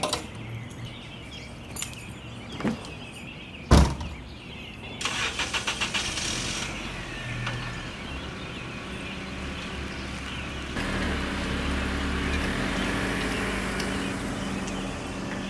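A sharp thump, then a car engine cranks in quick pulses for about a second and a half, catches and keeps running steadily; near two-thirds of the way through, the running sound steps up and grows louder.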